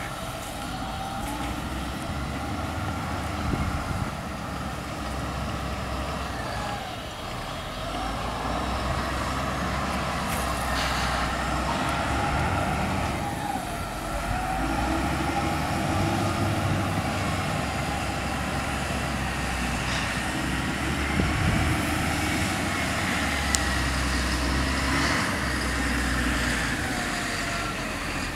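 Steady rumble of motor vehicle engines, with the engine pitch slowly rising and falling as vehicles speed up and slow down.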